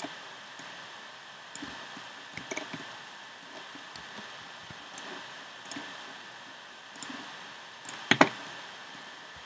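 Irregular clicks from a computer mouse and keyboard over a steady hiss. The loudest is a quick pair of clicks about eight seconds in.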